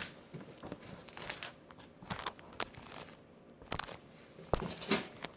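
Homemade slime worked by hand, giving off irregular crackling and small popping clicks, a few a second, with a few louder pops near the end.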